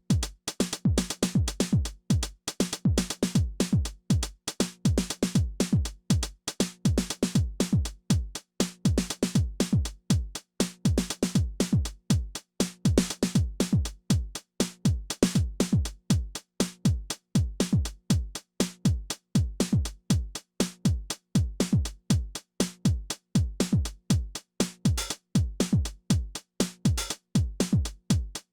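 Behringer RD-9, a TR-909-style drum machine, playing a repeating beat: deep kick drums that drop in pitch, under busy hi-hats and cymbals.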